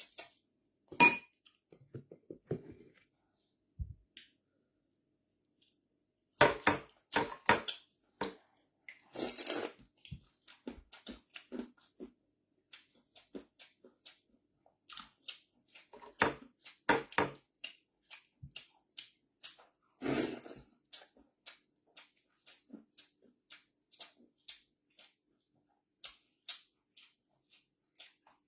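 Eating sounds: a series of short clicks and taps of utensils against dishes, with chewing and crunching between them, and a sharp clink about a second in.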